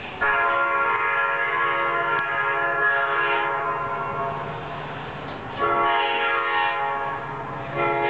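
Multi-chime locomotive air horn sounding a chord of several notes at once: one long blast that fades over about four seconds, a shorter blast of about two seconds past the halfway point, and a third beginning at the very end.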